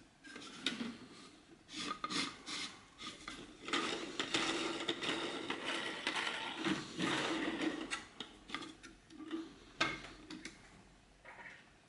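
A 3D-printed plastic toy concrete mixer truck being handled, making a series of plastic clicks and knocks. In the middle there is a longer stretch of rasping plastic-on-plastic rubbing.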